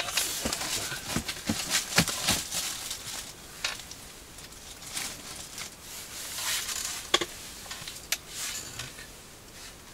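Handling noises of ice-fishing gear and clothing: scattered rustling with small clicks and knocks, several sharp ones in the first couple of seconds and a few more near the end.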